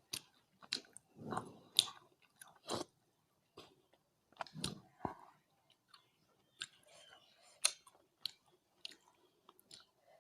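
Close-miked chewing and wet mouth smacks of a person eating rice with curry, in irregular sharp clicks with a few softer, fuller chews between them.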